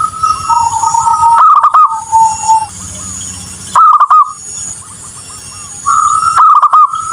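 Zebra dove (perkutut) cooing: three times, a quick bubbling run of notes, each followed by drawn-out lower tones.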